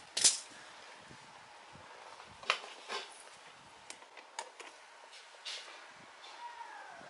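Scattered sharp clicks and knocks of parts and hands being handled at an outboard motor's midsection, the loudest just after the start, with a short falling squeak near the end.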